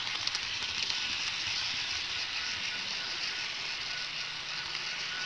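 Steady rolling hiss of small metal wheels on HO-scale rail, heard from a camera car riding on the moving model train, with a few light clicks in the first half-second.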